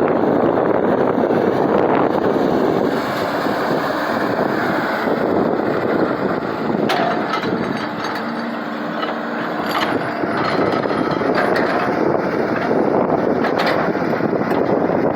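Diesel engine of a hydraulic excavator running steadily under work, with wind buffeting the microphone.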